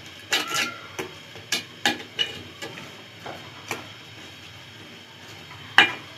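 A spoon stirring a thick mash of grated carrots in milk and sugar for gajar ka halwa, scraping and knocking against an aluminium pot in irregular strokes. The strokes are busy for the first few seconds, then quieter, with one sharp knock against the pot shortly before the end.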